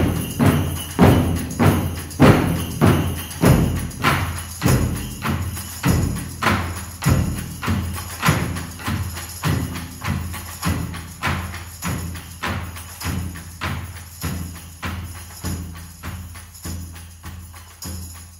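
Film score music: evenly spaced struck percussion hits, each ringing on with a pitched decay, nearly two a second, slowly fading.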